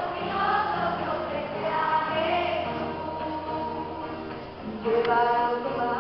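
A choir singing a song, with long held notes; after a short dip a new, louder phrase comes in near the end.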